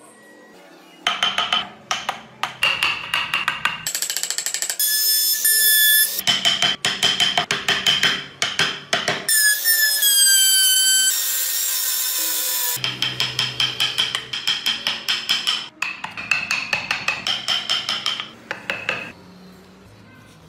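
Handheld electric rotary tool with a small burr engraving into wood: a high motor whine with fast rasping strokes as the bit cuts, in several bouts, the whine dipping slightly in pitch about halfway through.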